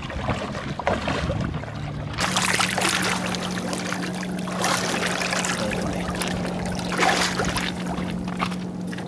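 Shallow river water splashing and sloshing around a large sturgeon held by the tail at the water's edge as it wiggles free. A steady low hum comes in about two seconds in and runs under the splashing.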